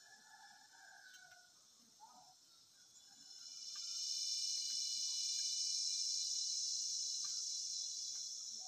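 High, steady insect buzz that swells about three seconds in and then slowly fades.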